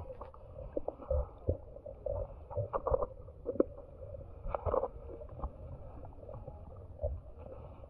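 Muffled underwater sound heard through a camera's waterproof housing below the surface: a low rumble of moving water with irregular knocks and short bursts of sound.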